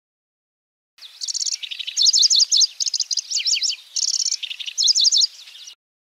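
Pallas's grasshopper warbler (kecici belalang) singing: short, fast phrases of sharp, high repeated notes, chattering trills and rolls. The song begins about a second in and cuts off abruptly near the end.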